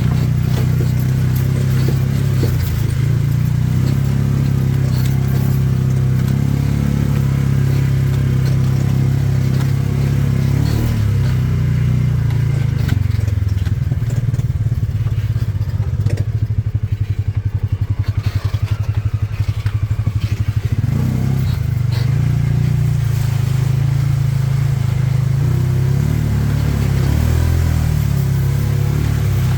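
A motor vehicle's engine running steadily as it is driven along a wet dirt track, with scattered clattering and knocks. Around the middle it drops for a few seconds to a fast, throbbing beat, then picks up again.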